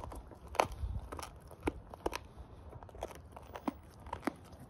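Staffordshire bull terrier chewing a raw pork trotter: irregular sharp crunches and clicks as its teeth work the trotter, the loudest about half a second in.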